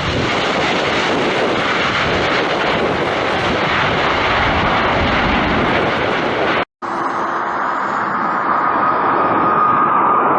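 Airplane engine noise, a loud steady roar that cuts off abruptly about two-thirds of the way through; after a split-second gap a second recording follows, a duller rumble with a steady high whine that grows slightly louder.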